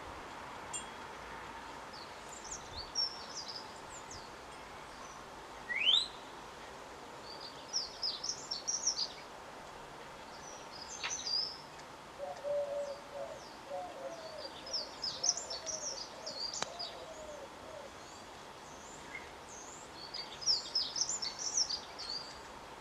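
Garden birds singing in clusters of short, high twittering phrases, with a single rising whistle. About halfway through comes a run of low cooing notes.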